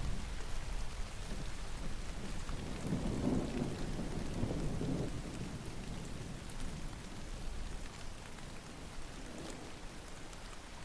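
Steady rain falling, with a low roll of distant thunder that builds about three seconds in and dies away a few seconds later.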